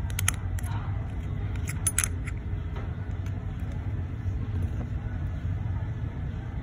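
Sharp little metal clicks of a steel watch case and a tool being handled in a case holder as the caseback comes off: a couple near the start and a quick cluster about two seconds in. Under them runs a steady low rumble.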